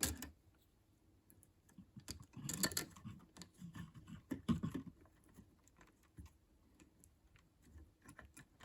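Irregular small clicks and rustles of wire and a plastic wall switch being handled as the neutral wire is fastened into the switch's terminal, with a louder cluster of clicks a few seconds in.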